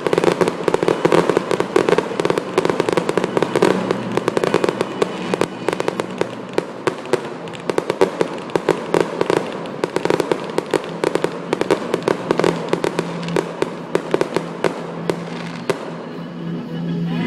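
Fireworks going off in rapid, continuous crackling pops, dozens a second, thinning out near the end, with music playing underneath.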